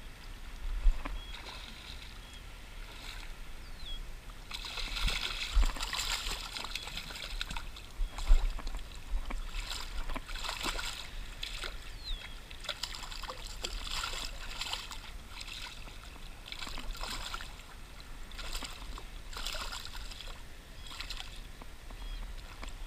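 A small hooked striped bass thrashing at the surface of shallow water, in irregular splashes and sloshes that come thick and fast from about five seconds in as it is drawn close on the fly line.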